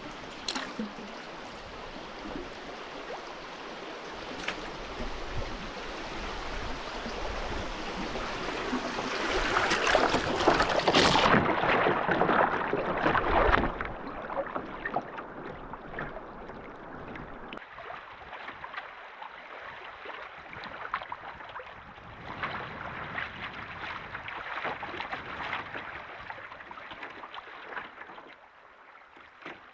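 Rushing river water around a canoe, with scattered short knocks and splashes. It is loudest about ten to fourteen seconds in, then settles to a quieter, steady wash.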